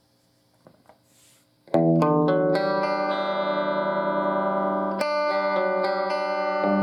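Electric guitar played through a Fender valve combo amp. After a near-silent pause, a chord is struck a little under two seconds in and left ringing, with more notes picked over it and another chord struck about five seconds in.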